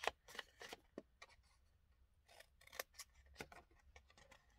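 Small paper snips cutting V-shaped notches from the edge of designer series paper: a series of quiet, crisp snips at irregular intervals.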